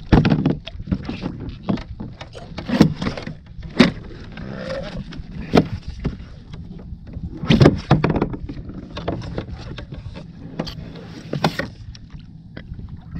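Irregular knocks and bumps against a plastic kayak as a small smoothhound shark is held and unhooked, over a steady low rumble.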